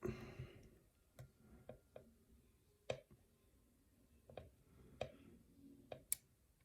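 Faint, scattered small clicks of a hook pick working the pin stack of a Sargent mortise lock cylinder, about one every half second to a second.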